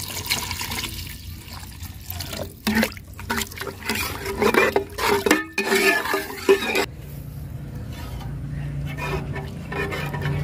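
Water poured into an aluminium pot of thick curry masala, splashing and gurgling as the gravy is thinned, for about seven seconds before it stops.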